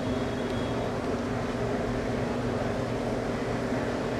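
A steady, unchanging mechanical hum, like a motor or blower running.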